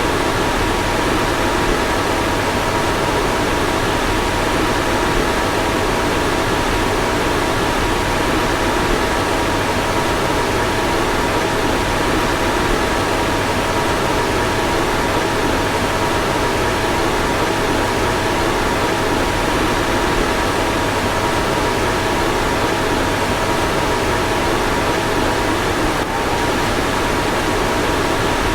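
Car ventilation blower fan running steadily: an even rush of air with a faint steady whine in it, briefly interrupted about 26 seconds in.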